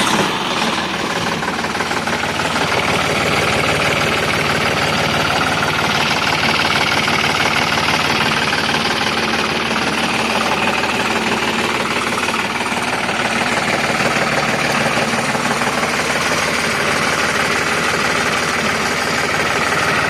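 John Deere GearPro tractor's diesel engine idling steadily, turning a belt-driven air compressor fitted to fill an air-horn tank.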